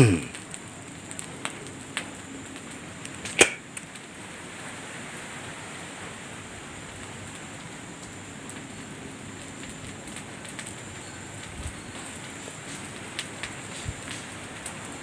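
Steady hiss of outdoor night noise with a faint high steady tone, broken by a sharp click about three and a half seconds in; no bell or jingle stands out.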